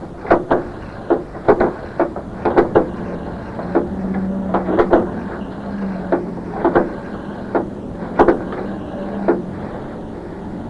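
A series of sharp, irregular knocks or taps, roughly one or two a second, over a low steady hum that comes in about four seconds in.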